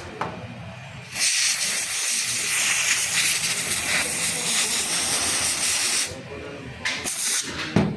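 A loud, steady hiss of spray or escaping gas, given in bursts: one about five seconds long starting about a second in, then a short one near the end.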